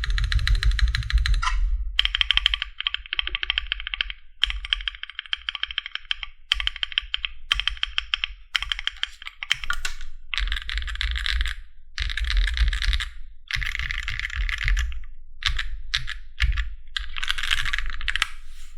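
Fast typing on a MonsGeek M1 aluminium, gasket-mount mechanical keyboard with a flex-cut PCB: runs of rapid keystrokes with short pauses between them, and a few scattered keypresses near the end.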